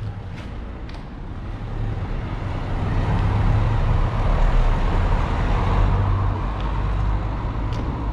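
A car driving over cobblestones, its engine and tyre noise swelling over a few seconds and easing off near the end.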